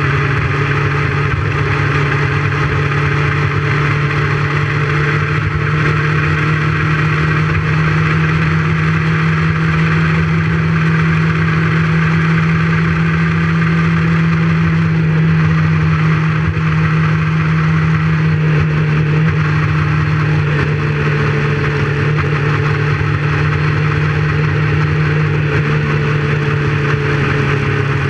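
Motorcycle engine running at a steady cruising speed, an even drone that barely changes in pitch, heard from a camera on the moving bike with wind and road rush.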